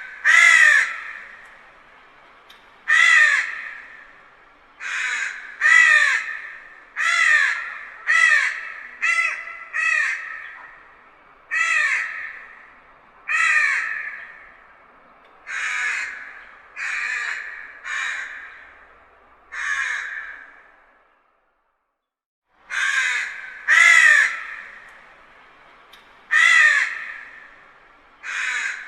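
Crow cawing over and over, harsh calls one to two seconds apart, each trailing off in an echo. The calls stop for about a second and a half about two-thirds of the way through, then resume.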